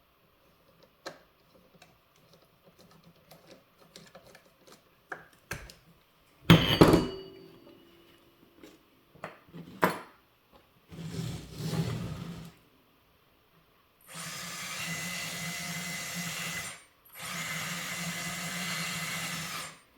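Scattered clicks and handling knocks, with one loud knock about six and a half seconds in, then a small electric motor running in two steady stretches of a few seconds each, with a short gap between them.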